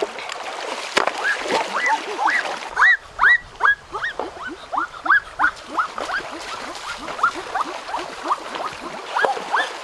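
An animal's repeated short squeaky calls, each rising then falling in pitch, about three a second, over a rushing noise that drops away after the first few seconds.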